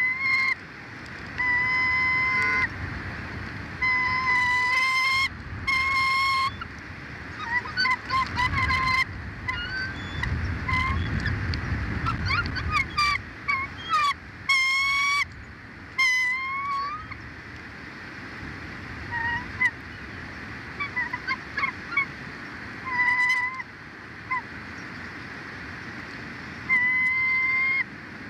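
Loud honking bird calls, each held for about a second at a steady pitch and repeated a dozen or so times. Shorter rising and chattering notes crowd in between them through the middle stretch.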